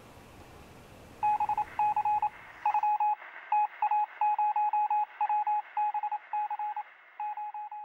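Electronic beeping at one steady pitch, in quick irregular runs of short beeps, starting about a second in and growing fainter toward the end. Faint room hiss lies under it at first.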